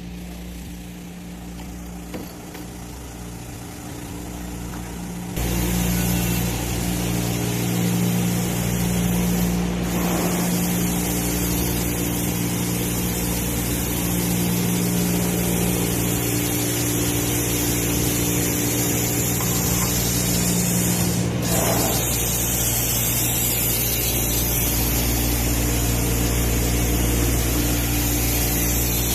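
Glass-processing machinery running with a steady electric hum. About five seconds in, a loud, even hiss comes on and then holds steady.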